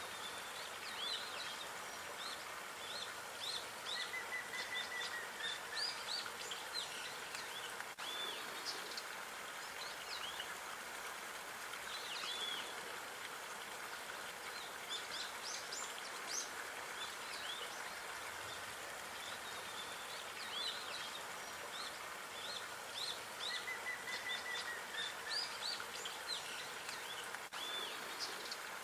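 Small birds chirping and calling again and again over a steady outdoor hiss, with a short trill heard twice.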